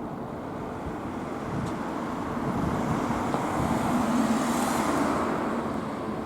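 Road traffic noise with a vehicle passing: a steady rumble that swells about four seconds in and then fades.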